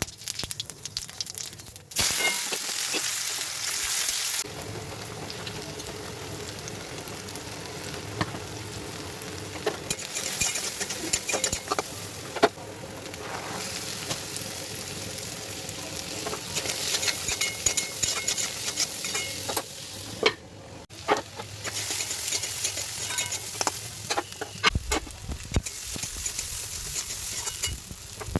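Food sizzling in hot oil in a pan while being stirred, with the spoon scraping and clicking against the pan. The sizzle jumps louder about two seconds in and changes abruptly several times.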